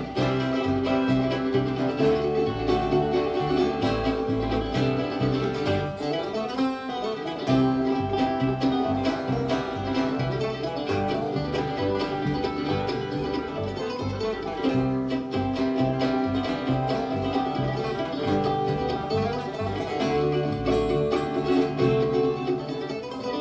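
Bluegrass band playing an instrumental break with no singing: banjo and guitar picking over an upright bass line keeping a steady beat, with fiddle.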